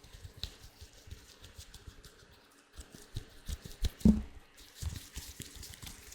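Latex gloves handled close to the microphone, giving a scatter of small sticky clicks and soft taps, with a louder thump and brief squeak about four seconds in.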